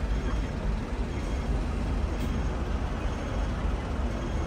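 Hong Kong double-decker tram running along its rails, heard from on board: a steady low running noise with no distinct knocks or tones.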